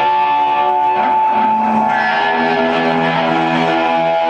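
Electric guitar bowed with a violin bow through a Marshall amplifier: long held, swelling notes, with a sliding pitch change about a second in.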